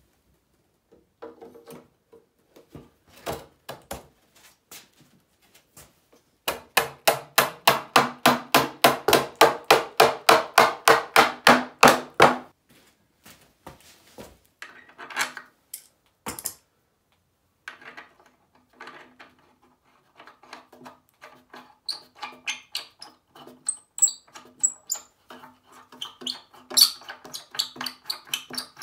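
Hand work on a wooden hand-powered band saw's upper wheel assembly, heard as clicking and knocking. A run of rapid, even clicks, about five a second, lasts roughly six seconds in the middle; lighter irregular clicks and taps come before and after it.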